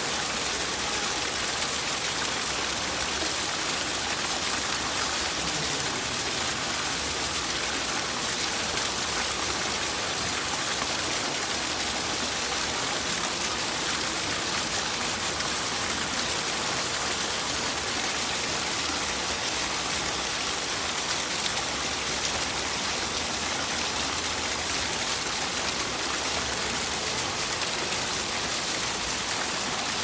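Decorative fountain's frothy water jet falling back into its shallow pool: a steady, even splashing hiss.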